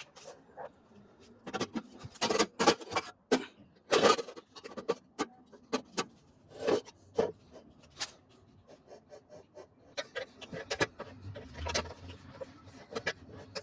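Irregular metallic clinks and knocks of hand tools and parts being handled during work on a washing machine's transmission, some strokes sharp and loud, at no steady rhythm.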